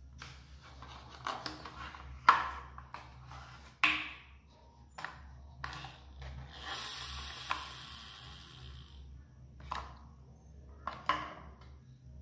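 Hard plastic toy backhoe loader being handled and turned over: scattered clicks and knocks of plastic parts, the two loudest about two and four seconds in, and a few seconds of rustling hiss in the middle. A steady low hum runs underneath.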